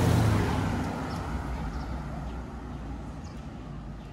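A motor vehicle passing close by with a low engine hum, loudest at the start and fading away over the next few seconds.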